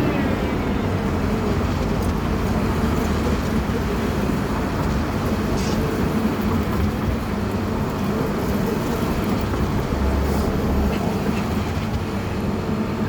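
A motor vehicle's engine running steadily, a constant low hum with no rises or falls.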